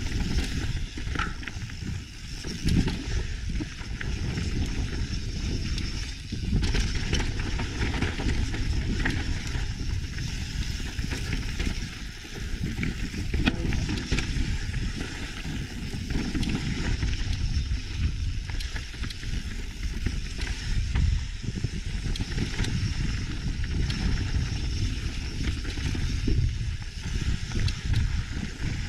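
Mountain bike descending a rough dirt and rock trail: tyres rolling and crunching continuously, with frequent short knocks and rattles from the bike over bumps and heavy wind rumble on the action camera's microphone.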